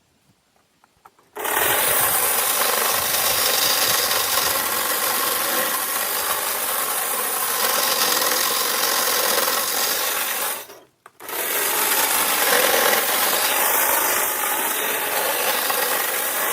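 Power saw cutting tree branches: a loud, steady cutting noise that starts about a second and a half in, stops briefly near eleven seconds, then runs again.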